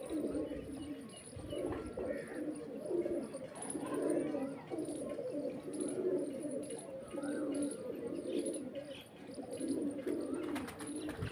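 A loft of domestic pigeons, nearly all cocks, cooing together in a steady, overlapping chorus of low coos, with a few faint higher chirps.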